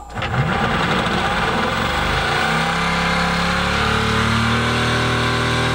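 Motenergy ME1115 electric boat motor spinning up, its pitch rising over the first couple of seconds, then running at a steady speed with an even hum. Newly remounted on rubber grommets, it runs without vibration.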